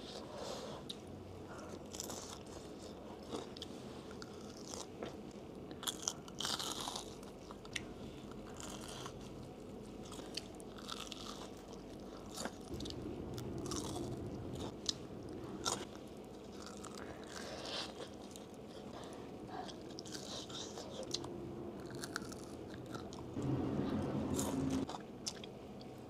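Close-miked chewing and crunching of a crisp fried bánh gối (Vietnamese fried pillow dumpling), with bites into the crust cracking at irregular moments.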